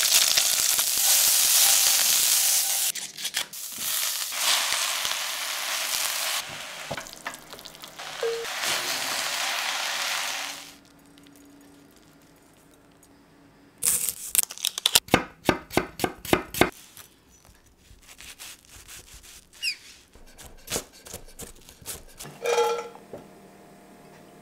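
Tofu strips sizzling in hot olive oil in a frying pan, with a few clinks of tongs as the strips are turned, for about ten seconds. The sizzle then stops, and a quick run of light clicks and taps follows a few seconds later.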